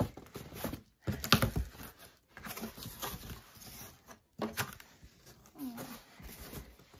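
Cardboard shipping box being opened by hand: the flaps are pulled back with rustling and scraping and a few sharp cardboard knocks, loudest about a second in and again past the middle.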